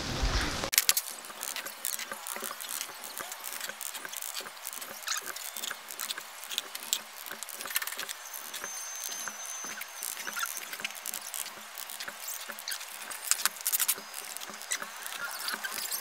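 Rain hissing on a corrugated metal roof for under a second, then cut off. After that come many irregular sharp clicks and taps of bricks being set and tapped down with a trowel as bricks are laid in mortar, and a short thin high whistle near the middle.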